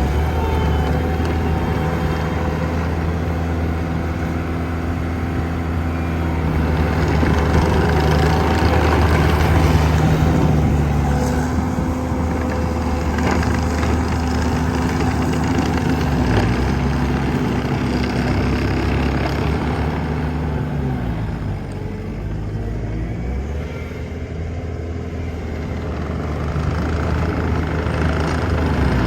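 Bobcat T750 skid steer's diesel engine running under work, its pitch and loudness shifting as it is throttled and loaded. About three-quarters of the way through, the pitch sags and the sound drops before building back up.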